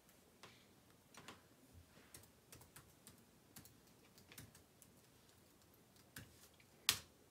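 Faint typing on a computer keyboard: scattered single keystrokes, with one louder keystroke near the end.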